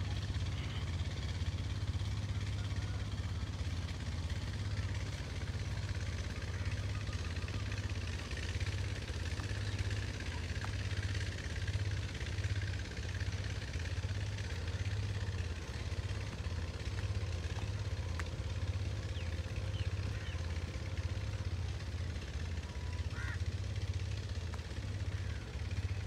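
A steady low rumble throughout, with a few faint bird chirps above it, one short rising chirp near the end.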